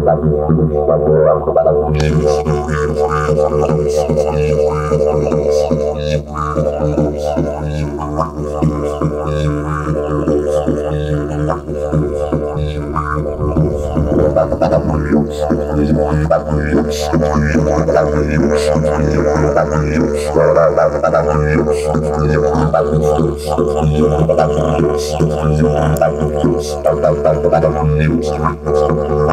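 Didgeridoo played solo: a continuous low droning tone with a rhythmic pulsing pattern and frequent short, sharp accents over it.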